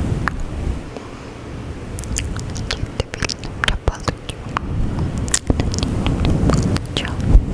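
Close-miked fluffy microphone windscreen being rubbed, a low rumbling rustle, with many quick wet mouth clicks over it.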